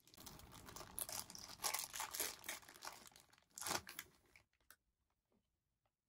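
Clear plastic bag crinkling as it is handled and crumpled, for about four seconds, loudest at two moments. It is followed by a few faint clicks near the end.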